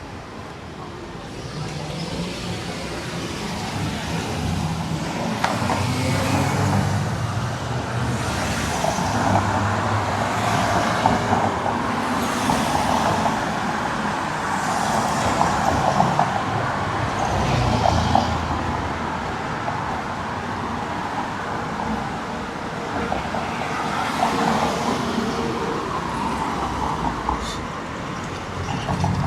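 Downtown street traffic: cars and other vehicles passing one after another, each swelling and fading as a rush of tyre and engine noise over a low engine rumble.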